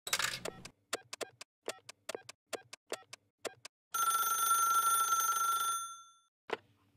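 A run of about a dozen short, sharp clicks at an uneven pace, then a steady bell-like ring for about two seconds that fades out, then one more click.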